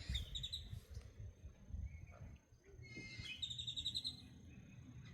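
A small bird singing a quick run of high, repeated chirping notes twice, once just after the start and again about three and a half seconds in, over a low rumble.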